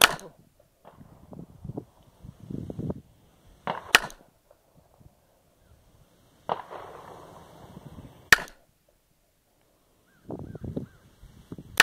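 Ruger SR1911 pistol with a Storm Lake threaded barrel fired slowly in single aimed shots: four shots about four seconds apart, the first at the very start and the last at the very end.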